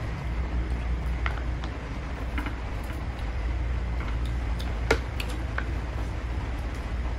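Scattered light clicks and taps, like utensils against a bowl, over a steady low hum; the sharpest click comes about five seconds in.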